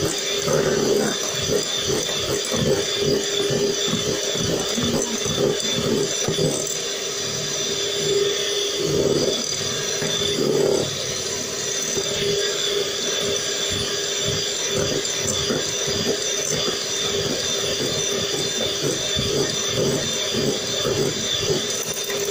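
Electric hand mixer running steadily at one speed, a constant motor whine, its beaters churning a thick white foam in a glass bowl.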